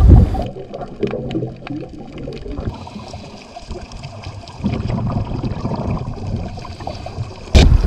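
Muffled underwater sound of scuba divers' exhaled regulator bubbles gurgling, with scattered faint crackles, growing louder about halfway through. Just before the end it cuts abruptly to louder open-air noise.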